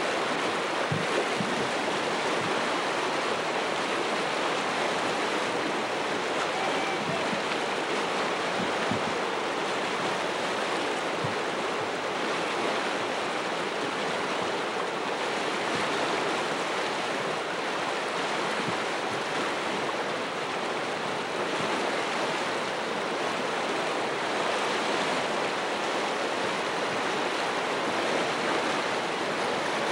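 Steady rush of river whitewater churning through a rapid and its standing wave.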